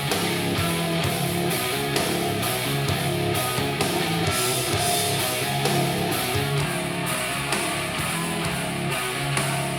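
Guitar-driven rock music with no vocals, played back through desktop computer speakers and recorded by a microphone in the room.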